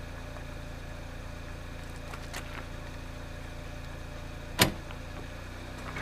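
Car engine idling steadily, with a single sharp metal clunk about four and a half seconds in as the trailer's hitch coupler drops onto the tow ball.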